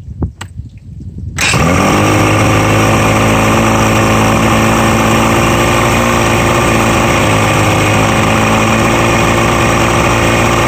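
Outboard motor, run with its cowling off on a freshly rebuilt carburetor and fuel pump, starts about a second and a half in, its speed rising briefly, then runs steadily.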